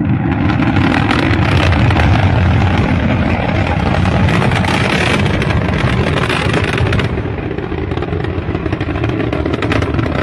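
Rocket engines firing in flight, a loud continuous rumble with crackle, heard from a distance. The upper hiss thins out about seven seconds in, as the exhaust flame turns ragged. The stage has lifted off by accident during a ground test.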